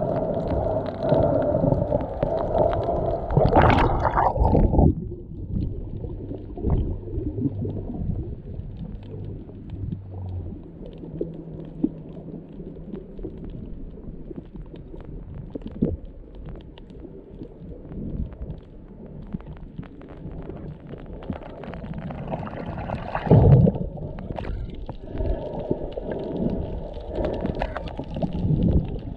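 Underwater sound through a submerged camera: muffled water rumbling and gurgling with scattered clicks. A low steady hum runs for about the first ten seconds. Louder rushes of water come around four seconds in and again near twenty-three seconds.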